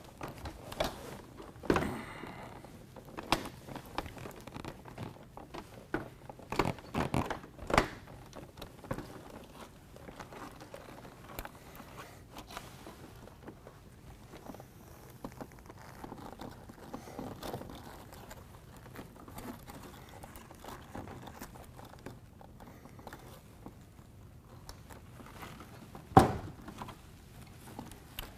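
Handling noise of a plastic window air conditioner being lifted and set into a window frame: scattered clunks, knocks and plastic rubbing with quiet stretches between, and one louder knock near the end.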